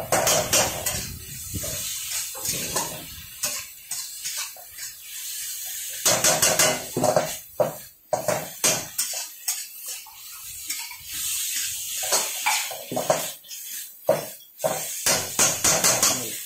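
A metal spatula and ladle clank and scrape against an iron kadai as chicken chilli is stir-fried and tossed over a gas flame, with the food sizzling underneath. The clanking comes in quick clusters of strokes, with a quieter stretch in the middle.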